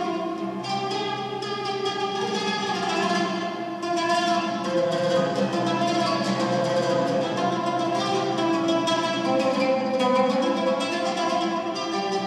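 An oud played in quick runs of plucked notes in maqam jiharkah, over sustained orchestral notes.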